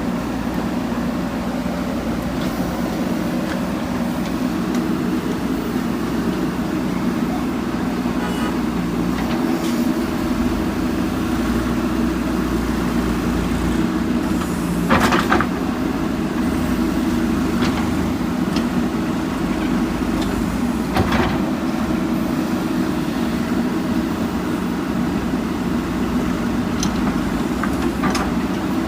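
JCB backhoe loader's diesel engine running steadily under work, its pitch shifting up about a third of the way in. Two loud clanks come about halfway through and again some seconds later.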